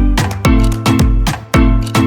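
Upbeat background music with a steady beat, bass and plucked string instruments.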